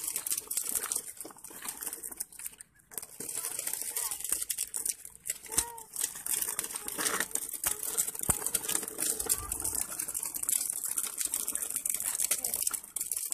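Hard plastic wheels of a children's push-along ride-on car rolling over rough asphalt and loose grit, a continuous crackling rattle with many small clicks.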